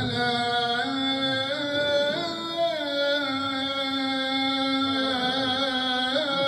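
A male muezzin singing one long, drawn-out phrase of the adhan (Islamic call to prayer). His voice is held mostly on one note, with ornamental turns.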